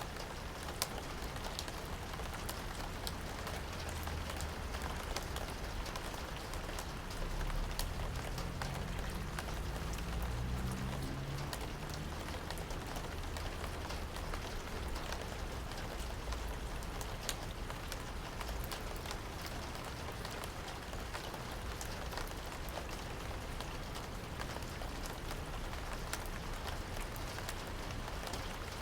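Steady rain falling, with many separate drops heard as sharp ticks. A low rumble swells briefly about a third of the way in.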